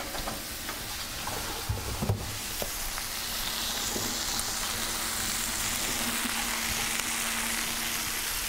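Meat medallions searing in a very hot stainless steel skillet: a steady sizzle that swells a little a few seconds in. There are a few light clicks near the start and a faint steady hum beneath.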